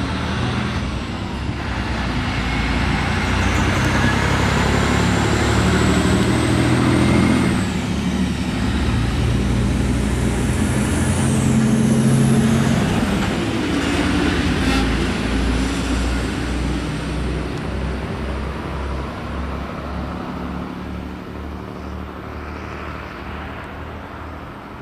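DSB IC3 (MF) diesel multiple unit pulling out and accelerating past, its diesel engines running hard. A high whine climbs and drops back twice as it gathers speed. A regular low pulsing follows, then the sound fades as the train draws away.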